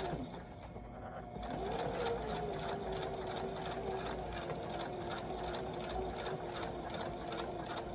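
Brother electric sewing machine running at a slow, steady pace, motor whirring and needle clattering as it stitches stretched elastic onto swimsuit fabric. The motor eases off near the start and picks back up about a second and a half in.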